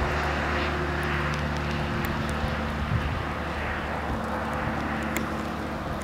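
Steady low engine drone with a hiss underneath, holding level throughout, with a few faint ticks.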